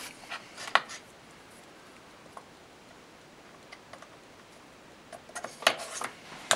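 Wire cutters snipping thin tinned wire, a sharp click just before a second in, followed later by a few small clicks of the tool being handled over the circuit board.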